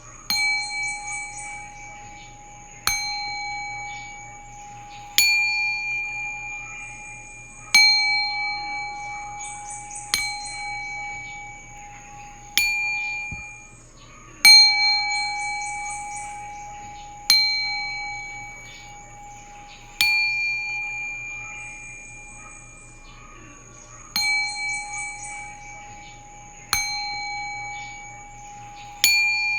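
Singing bowl struck over and over, about every two and a half seconds, each strike ringing out on the same few tones and slowly fading before the next.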